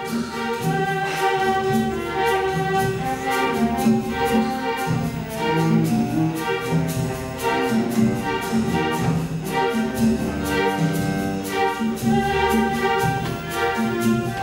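Full youth symphony orchestra playing: bowed strings and brass together over a steady rhythmic pulse.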